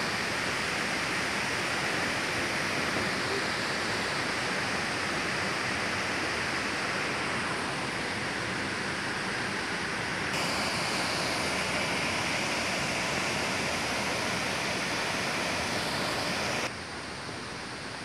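Steady roar of a tall waterfall's falling water, an even rushing noise that gets slightly brighter about ten seconds in and cuts off abruptly near the end.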